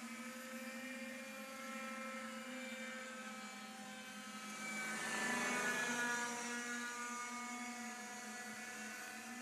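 Radio-controlled model helicopter and home-made tricopter whining in flight, their motor and rotor pitches drifting as they manoeuvre. About five seconds in, one passes close and the whine swells louder, then fades back.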